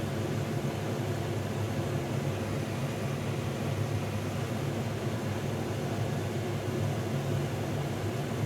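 A truck's engine idling, heard from inside the cab as a steady low hum with hiss.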